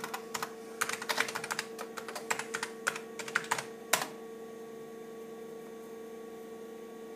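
Keys being typed on the IBM PC XT's keyboard: a quick run of clacking keystrokes that stops about four seconds in, over a steady hum from the running computer.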